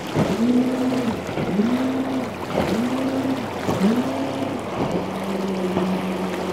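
Two-stroke Johnson outboard motor on a speedboat running hard, its pitch dropping and swinging back up about once a second as the boat hops, then holding one steady pitch for the last second and a half. Water and wind hiss runs underneath.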